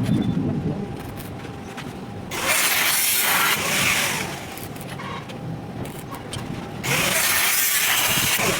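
Arc welding: two bursts of crackling arc noise, each about two seconds long, starting and stopping abruptly, as short welds are laid on steel.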